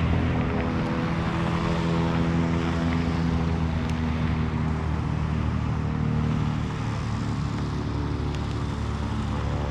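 Piston engine of a small canard pusher-propeller aircraft running at taxi power as the plane taxis, a steady drone with several engine tones that shift slightly partway through.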